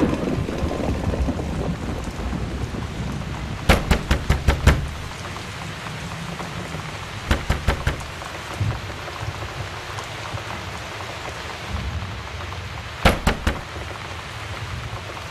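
Knocking on a wooden door in three bursts: five or six quick raps, then four, then three. Under it runs a steady rushing noise with low rumbles, like rain.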